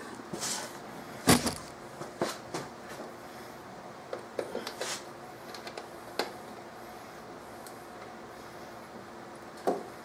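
Spark plug wires being handled and their rubber boots pushed onto the new distributor cap: scattered clicks and knocks, the loudest about a second in, with a small cluster around four to five seconds in and one more near the end.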